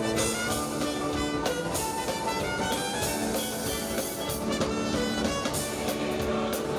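Instrumental music with held chords over drum beats.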